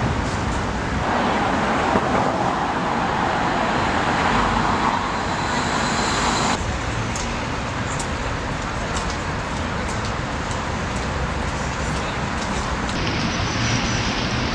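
Steady city traffic noise, with the background changing abruptly a few times.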